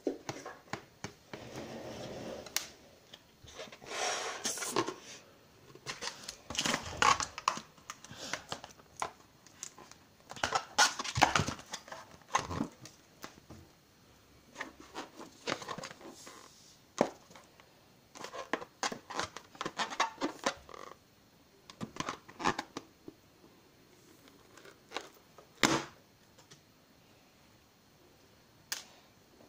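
Rubber balloon handled and rubbed between the hands: irregular bursts of rubbing and crinkling, with a few short sharp snaps.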